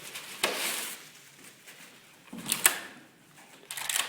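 Vacuum-cleaner parts being handled while unpacking. There is a sharp knock about half a second in, followed by a short rustle, another knock and scrape about two and a half seconds in, and a few clattering knocks near the end.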